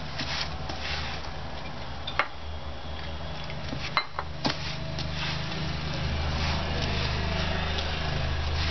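Hands kneading a crumbly fenugreek and gram-flour dough in a stainless steel bowl: soft squishing and rubbing, with three sharp clicks about two, four and four and a half seconds in. A steady low hum runs underneath.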